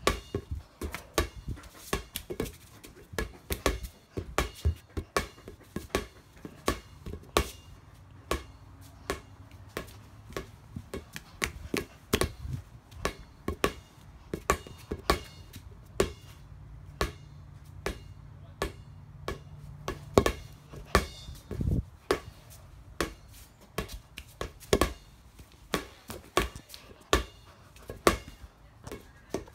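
Irregular sharp clicks and knocks, about two or three a second: handling noise of a phone camera being carried and jostled in the hand.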